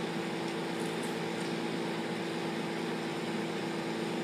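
Steady mechanical hum with a constant tone, like a room appliance running, and a couple of faint ticks about a second in.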